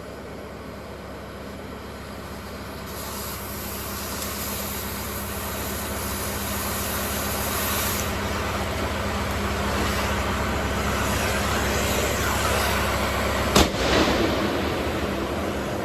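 Oxy-fuel cutting torch hissing as it cuts steel, the hiss building and growing louder from about three seconds in, with one sharp bang near the end. A low steady engine hum runs underneath.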